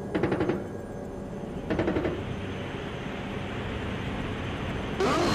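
Two short bursts of automatic gunfire, heard through a combat helicopter's cockpit audio, the second about two seconds after the first. A steady hiss of rotor and intercom noise follows.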